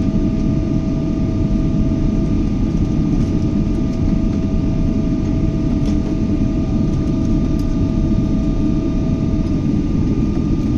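Boeing 777 jet engines and airflow making a steady low rumble, with two thin steady tones across it; the lower tone stops about a second before the end.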